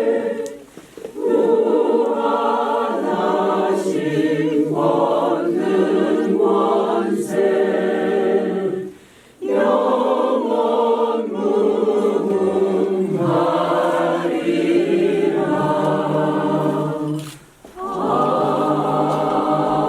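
Church choir singing a hymn in long phrases, with brief pauses for breath about a second in, around nine seconds, and shortly before the end.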